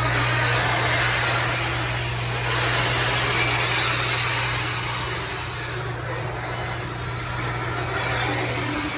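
Garage door travelling on its electric opener before being lubricated, with a steady motor hum under a loud rattling and rolling clatter from the door. It stops shortly before the end.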